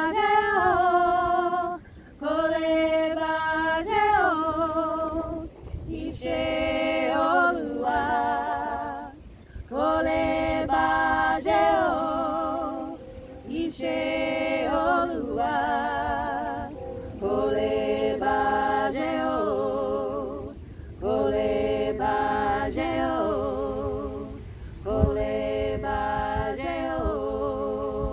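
Three women singing a cappella in harmony, in sung phrases of about two seconds with short breaks between them.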